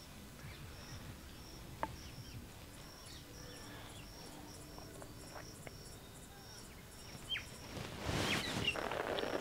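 An insect chirping steadily, a short high pulse about every half second, with a few faint clicks. From about eight seconds in, a louder rustling, scuffing noise takes over.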